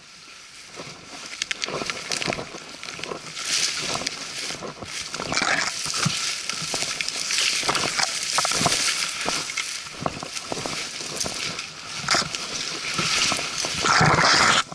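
Leafy branches and brush scraping and rustling against the camera as a hiker forces through dense forest undergrowth, with many twigs snapping and knocking on the camera; loudest near the end, then it cuts off.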